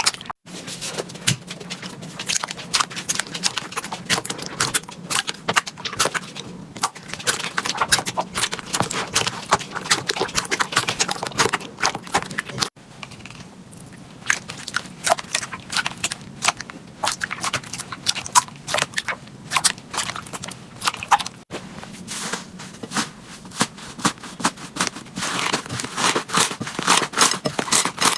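Slime being pressed and squished by hand, giving a dense run of small crackling pops and clicks. The sound breaks off and changes abruptly twice.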